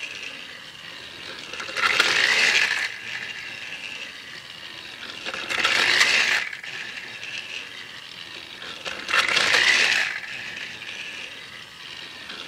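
Battery-powered Trackmaster Thomas toy engine's small motor and gears whirring and rattling on the plastic track, swelling louder three times, about every three and a half seconds.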